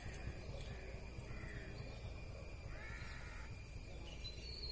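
A bird calling three times over a steady low background rumble: short calls about a second apart, the third a little longer.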